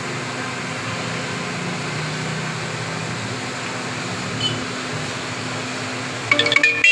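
Steady mechanical hum over a noisy background. Near the end a few bright, ringing tones come in.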